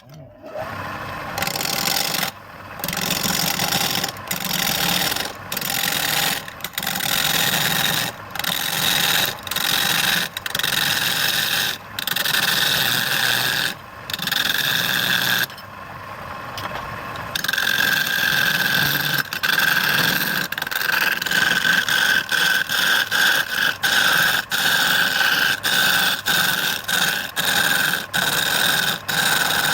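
Turning tool cutting a spinning wooden root on a lathe, in repeated strokes a second or two long with short breaks between them. From about halfway through a steady high tone runs under the cuts.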